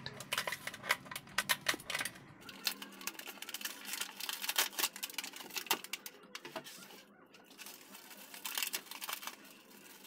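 Thin plastic toy packet crinkling and crackling as it is opened and handled, a dense run of small crackles that thins out after about six seconds.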